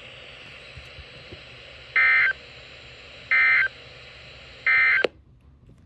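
Three short bursts of EAS digital data tones from a weather radio broadcast, each under half a second and about 1.3 seconds apart: the end-of-message signal closing a severe thunderstorm warning. A click follows the last burst and the background hiss drops.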